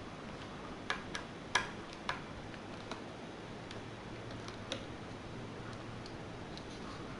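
Irregular light clicks and taps of small hard parts and tools being handled as a laptop is taken apart, about six of them in the first five seconds, the loudest about one and a half seconds in, over a steady faint hiss.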